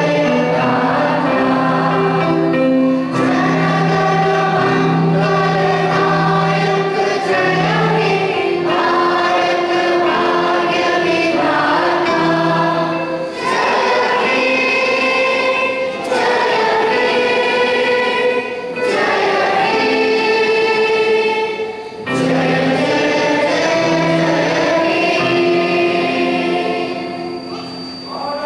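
A children's choir singing together into microphones, with a low sustained accompanying note under the voices; the singing falls away near the end.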